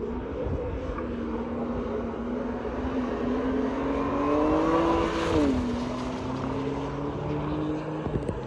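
Safety car's engine on a track-check lap, climbing slowly in pitch as it approaches. About five seconds in the pitch drops sharply as the car passes, and the engine then runs on at a steady lower pitch as it moves away.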